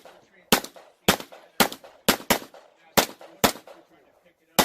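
Pistol shots in a match stage: eight shots, mostly about half a second apart, with a quick double just past two seconds in. Each shot is sharp and rings briefly after.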